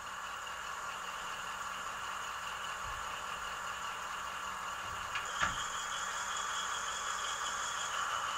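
Sound-equipped N scale Siemens SC-44 Charger model (TCS WoW Sound decoder) playing its diesel prime mover sound through its tiny onboard speaker, being notched up so the engine sound grows steadily louder. A couple of brief clicks come a little past halfway.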